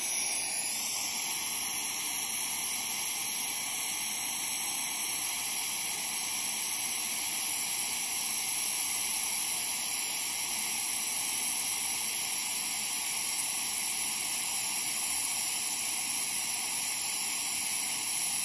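Steady hiss of a smoke-evacuator suction unit running without a break.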